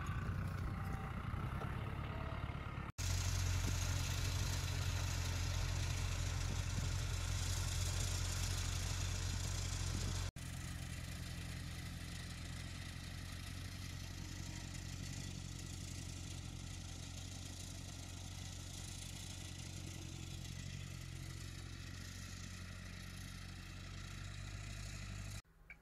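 Large farm tractor's diesel engine running steadily, a low even drone. It drops out for an instant twice, about three seconds in and about ten seconds in, and is a little louder between those two breaks.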